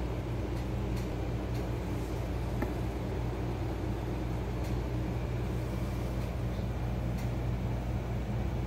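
A steady low mechanical hum, like a fan or appliance running, with a few faint clicks.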